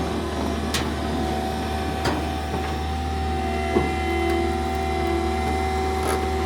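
Bobcat T76 compact track loader running steadily, a low hum with a constant machine whine, with a few sharp ticks spread through.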